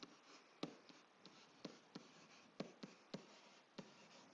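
Faint taps and light scratches of a stylus writing: about eight to ten soft ticks spread irregularly over a few seconds.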